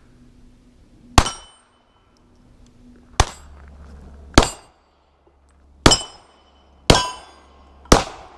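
Steel shooting targets struck by shots: six sharp metallic clangs, one to two seconds apart, each ringing briefly.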